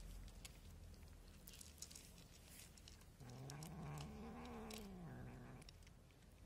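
Cats crunching dry kibble, heard as scattered small clicks, and about three seconds in one cat gives a single low, drawn-out call that rises in pitch and falls back over some two seconds.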